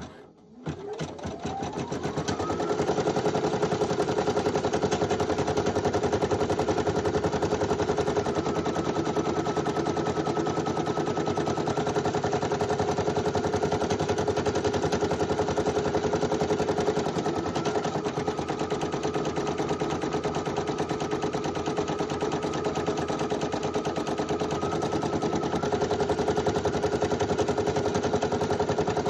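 Computerized embroidery machine stitching out lettering on hooped vinyl. Its motor whine rises as it starts up in the first two seconds, then settles into a steady, rapid needle rhythm.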